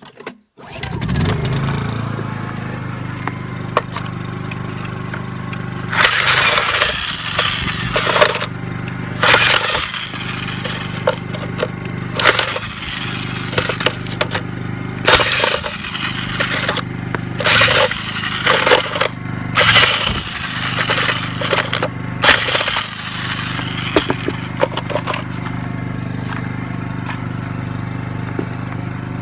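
Mastercraft Maximum corded impact wrench hammering wheel lug nuts loose in about seven bursts of a second or two each, with sharp clicks between them. Under it, the steady hum of the portable Honda generator powering the wrench starts about half a second in.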